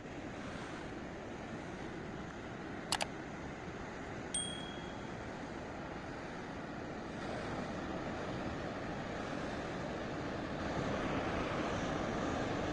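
Steady outdoor rushing noise, growing louder about seven seconds in and again near ten seconds. Two quick clicks come about three seconds in, and a short metallic ting rings briefly a little after four seconds.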